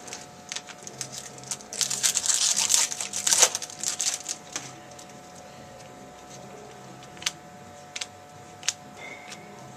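Trading card pack wrapper being torn open and crinkled for about three seconds, followed by a few light, separate clicks.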